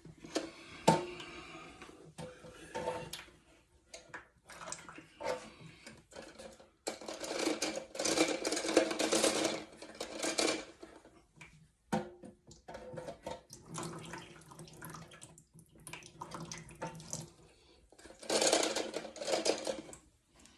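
Water splashing and sloshing in a toilet tank as parts are handled inside it, with scattered clicks and knocks of plastic parts. There are two longer spells of splashing, one about seven seconds in and one near the end.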